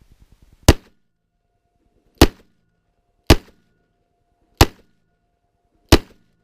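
Five shots from a Ruger Super Redhawk .44 Magnum revolver, fired one at a time about a second or a second and a half apart, each a sharp crack with a short echoing tail.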